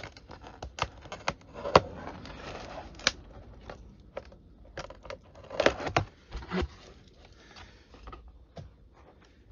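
Pocket knife blade slitting the packing tape along the seam of a cardboard box, then the cardboard flaps being opened. The sound is irregular sharp clicks and scratchy scrapes of tape and cardboard, loudest a little past halfway.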